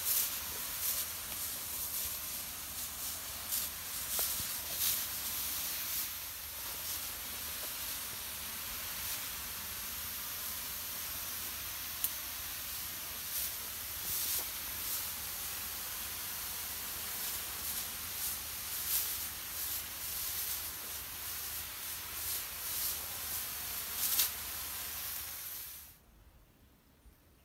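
High-pressure spray wand hissing steadily as it sends a fine mist into the tree's foliage, with brief crackles now and then. The hiss cuts off suddenly near the end.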